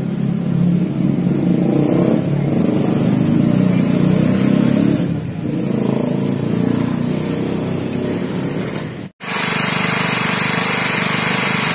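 Small portable 2 kW generator engine running steadily, with a momentary break about nine seconds in before it continues.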